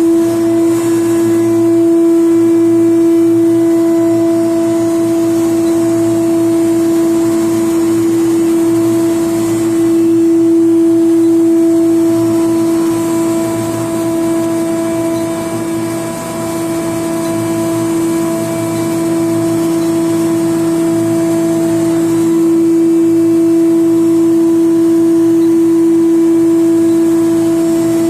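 A medium-frequency induction melting furnace installation under full power, with heat on and about 9 MW drawn, giving a loud, steady electrical hum with one clear tone and its overtones.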